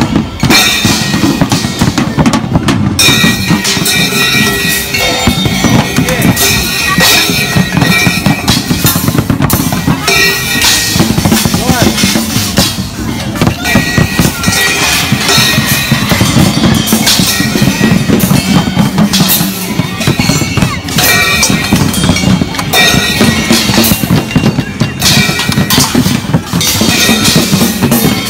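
Drums and cymbals being struck continuously in a dense, busy pattern.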